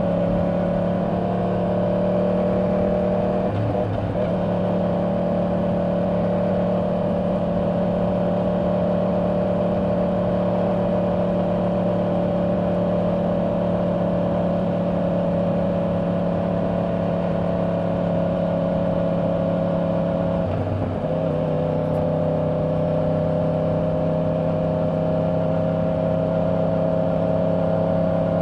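2024 Yamaha R1's crossplane inline-four with stock exhaust running steadily at highway speed, heard from the rider's seat with wind noise. The engine pitch dips briefly about four seconds in and again about twenty-one seconds in, then climbs slowly toward the end.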